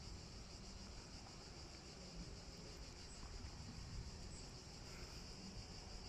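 Faint steady high-pitched chirring of insects over a low, uneven rumble.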